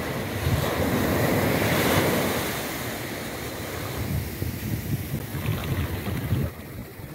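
Small surf waves breaking and washing up a sandy beach: a louder wash swelling about a second in and easing off, then a weaker one that drops away suddenly near the end. Wind rumbles on the microphone throughout.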